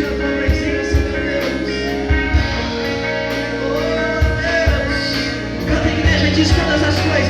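Live worship band music with guitar and a steady drum beat, with singing.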